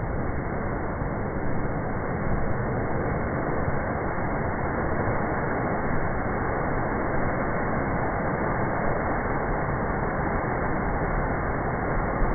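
Ocean waves crashing into a narrow rock inlet and surging back out, a steady, muffled rush of surf with no breaks.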